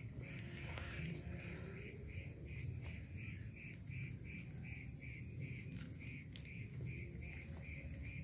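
Crickets chirping in an even rhythm, about two chirps a second, over a steady high-pitched whine and low background rumble.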